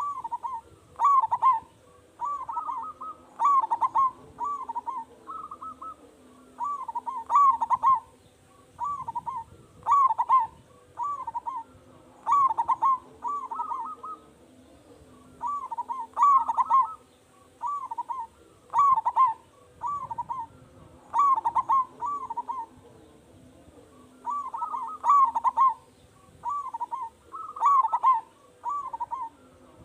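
Zebra dove (perkutut) singing its cooing song over and over: short rolling phrases of several notes, coming every one to two seconds with short pauses between, from a loud-voiced bird in full song.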